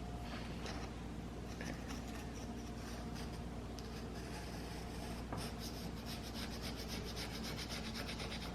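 Razor blade scraping hardened epoxy flush over a filled crack: short rasping strokes, irregular at first, then a quick run of about six strokes a second near the end.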